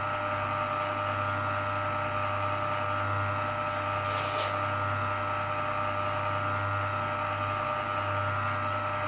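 Electric motor of a countertop freezer-bowl ice cream maker running with a steady hum as it turns the paddle through caramel ice cream churned for about 20 minutes, now thickened to a soft-serve set.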